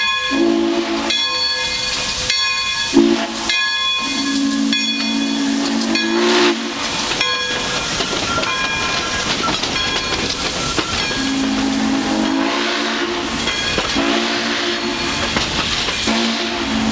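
Pere Marquette 1225, a 2-8-4 Berkshire steam locomotive, sounding its chime steam whistle in several long and short blasts as it passes close by, with a pause of about five seconds in the middle. Under the whistle, the hiss of steam and the rolling of the train run on.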